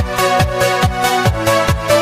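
Electronic dance background music: a steady kick drum a little over two beats a second under held synth chords.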